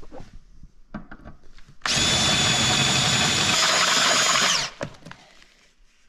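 Cordless drill boring out a hole in a steel seat frame, running steadily with a high whine for about three seconds from about two seconds in, then stopping abruptly. Light knocks of handling before and after.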